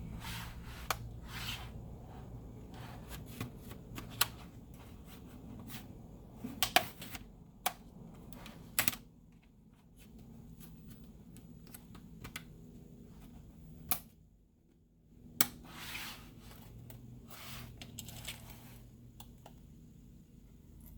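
Plastic clicking and scraping as a pry tool is worked along the seam of an HP Stream laptop's plastic case, with irregular sharp clicks, a few louder ones around the middle, and a brief lull a little after halfway.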